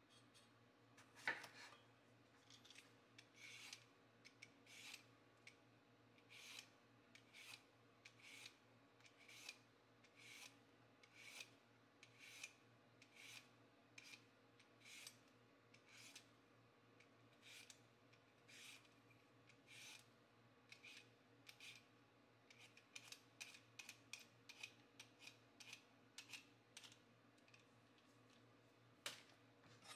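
Vegetable peeler scraping strips of skin off a cucumber in short repeated strokes, about one a second, coming faster near the end. A knife knocks once on the wooden cutting board about a second in.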